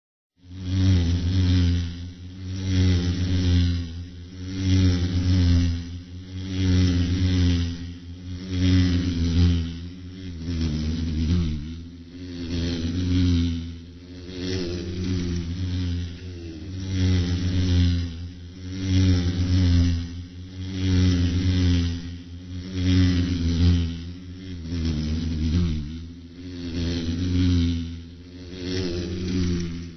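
A fly buzzing in flight: a low drone with a slightly wavering pitch that swells and fades about every two seconds.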